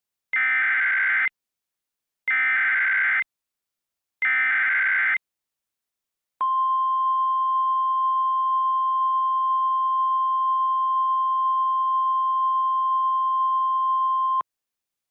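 Emergency Alert System SAME header: three one-second bursts of digital data tones, a second apart. Then the NOAA Weather Radio 1050 Hz warning alarm sounds as one steady high tone held for about eight seconds. It is the alert signal that opens a flood warning.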